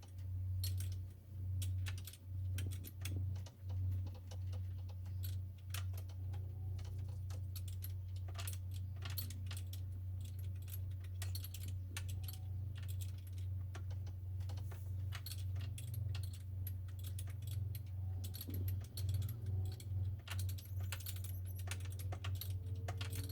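Repeated irregular metallic clicks and clinks of a 12 mm fixed spanner working a bolt loose, over a steady low hum.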